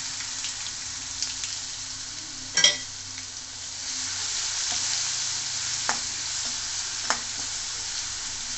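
Crushed garlic sizzling in hot oil with spluttered mustard seeds and cumin in a stainless-steel kadai: a tadka being fried. A metal spoon stirs it and clinks against the pan a few times, loudest about two and a half seconds in.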